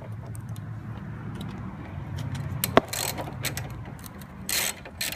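Scattered clicks, knocks and scraping of hand tools and plastic parts being worked on as the coolant reservoir is unfastened in the car's engine bay, with one sharp click about halfway through and a longer scrape near the end, over a steady low hum.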